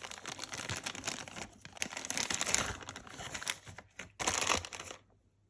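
Watch packaging crinkling and rustling as it is handled and unwrapped, in a continuous run of crackles with a short pause and a last loud burst near the end.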